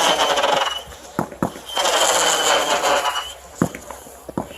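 Consumer fireworks going off: two hissing bursts, each about a second and a half long with a steady high whistle running through it, and sharp pops between them.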